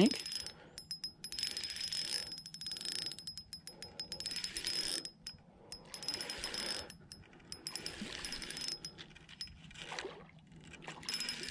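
Shimano Sienna spinning reel being cranked in spells of a second or two with short pauses, its gears giving a fast fine clicking with a thin high whine, as a fish is reeled in.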